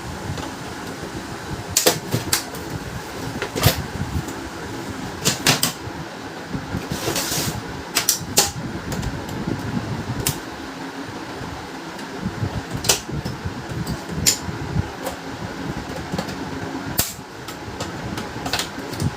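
Irregular clicks and knocks of plastic parts and screws being handled as a HP LaserJet P1102 laser printer is taken apart, over a steady fan-like hum, with a short hiss about seven seconds in.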